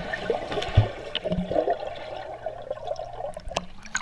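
Pool water churning and bubbling, heard underwater through a GoPro's waterproof housing, so it sounds muffled, with a few dull knocks.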